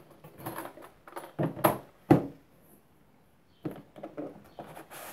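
Hard plastic blow-moulded tool case being opened and handled: several sharp plastic clicks and knocks, the loudest about two seconds in, with lighter scraping and handling noise between them.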